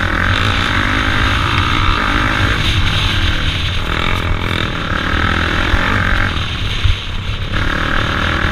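ATV engine running, growing louder and easing off in three long surges as the throttle is worked.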